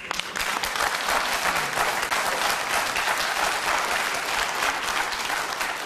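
Large theatre audience applauding, many hands clapping together in a dense, steady patter.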